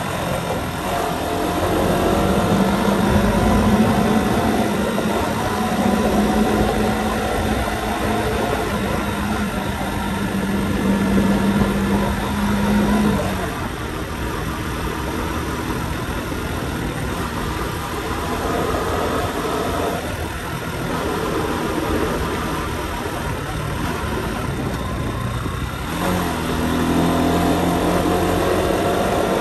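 Motorcycle engine running under way, with steady wind and road noise. The engine note holds steady for the first dozen seconds, drops back to a quieter hum about halfway through, and picks up again near the end.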